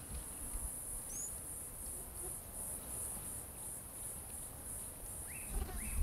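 Steady high-pitched insect buzz, pulsing about twice a second. There is one short falling chirp about a second in, three short chirps near the end, and a low rumble that starts near the end.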